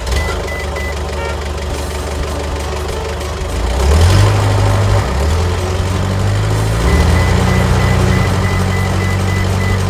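Cartoon truck engine sound effect running steadily, then revving up to a higher, louder note about four seconds in. A faint high beeping repeats near the start and again from about seven seconds in.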